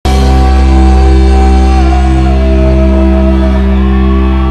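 Live rock band playing loud through a stage PA, electric guitars and bass holding a sustained chord with heavy low end.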